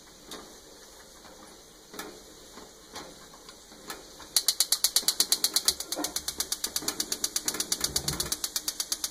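Gas oven's electric spark igniter clicking fast and evenly, about eight clicks a second, from a little under halfway in as the oven burner is lit. A few scattered light knocks come before it.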